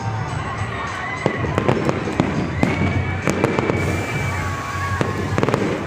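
Aerial fireworks going off: a steady run of sharp bangs and crackling from bursting shells.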